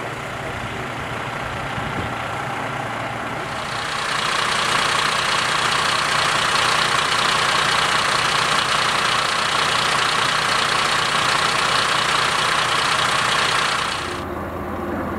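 Fire engine's diesel engine idling steadily, joined about four seconds in by a loud, even hiss that cuts off abruptly about a second before the end.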